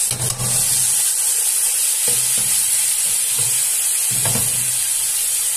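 Blue marlin pieces sizzling and steaming in a pot as they release their own juices, a steady hiss, with a few low thuds through it.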